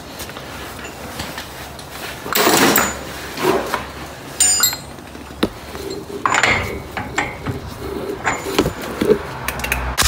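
Irregular metallic clinks, knocks and scrapes from an impact wrench's steel socket being handled and fitted onto a driveshaft nut at the wheel hub, with a couple of louder clattering bursts.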